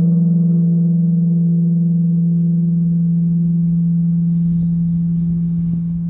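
The Emille Bell, the great Silla bronze temple bell, ringing on after a single strike. A deep, steady hum carries throughout, while its higher overtones slowly die away over the first few seconds.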